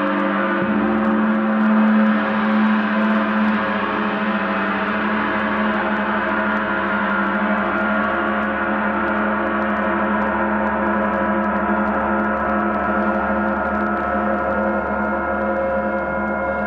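Large gong struck with a mallet and left to ring: a dense wash with several steady tones that swells over the first few seconds, then holds and slowly eases.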